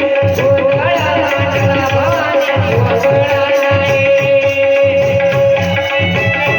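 A Marathi gondhal folk song: a voice sings gliding phrases over a steady held drone tone and a repeating hand-drum rhythm.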